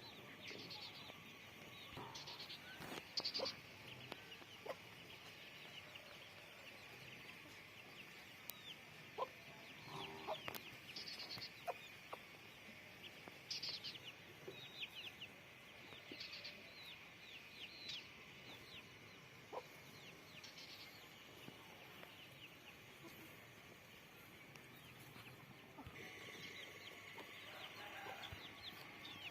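Faint chickens clucking, with short high calls scattered irregularly throughout.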